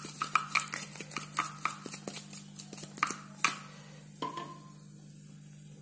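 A metal spoon clinking against a metal cooking pan in quick, even taps, about three a second, stopping about three and a half seconds in. A steady low hum runs underneath.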